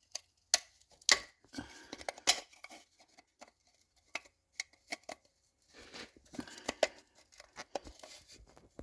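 3D-printed plastic adapter parts being handled and pushed together: a string of sharp plastic clicks and knocks with short stretches of scraping and rubbing.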